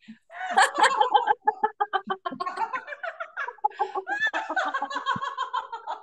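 People laughing loudly on purpose in laughter yoga: quick rhythmic 'ha-ha' pulses that run into one long held laugh about four seconds in, with music underneath.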